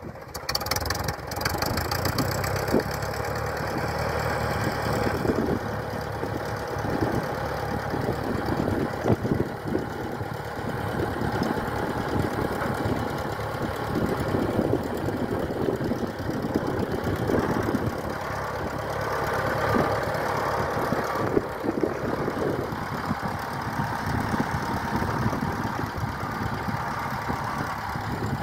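Cockshutt 30 tractor's four-cylinder engine running steadily at low speed, with a continuous rapid pulse of firing strokes, as the tractor is driven slowly along.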